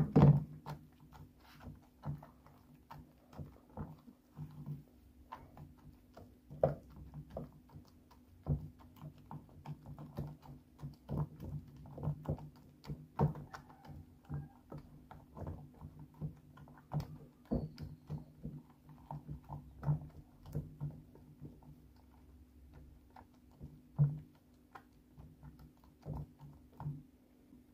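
Silicone spatula stirring and scraping a sticky paste of melting soap flakes, water and glycerin in a stainless steel bowl: irregular soft squelches and clicks over a low steady hum, with a knock right at the start.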